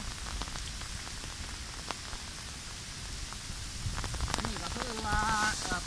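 Steady rain falling, an even hiss with scattered sharp drop ticks and a low rumble of wind. About five seconds in, a person's voice is heard briefly.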